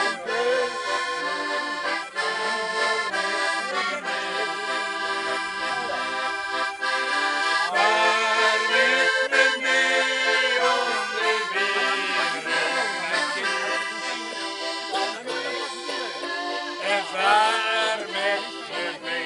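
Hohner piano accordion playing chords and a tune, joined by a harmonica. A wavering melody line stands out higher up around the middle and again near the end.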